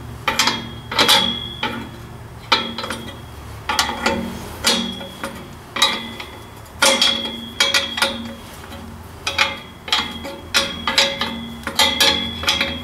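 Repeated hammer taps on a Ford 800 tractor's exhaust pipe and clamp, driving the pipe into place. The blows come irregularly, about one or two a second, and each leaves the steel pipe ringing briefly.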